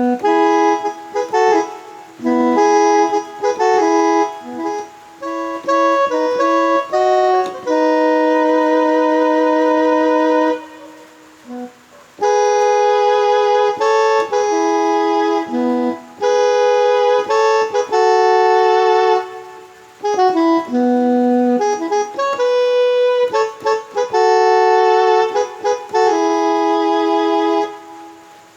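Korg Pa700 arranger keyboard playing a reedy, accordion-like voice: melody phrases over held chords, broken by brief pauses twice.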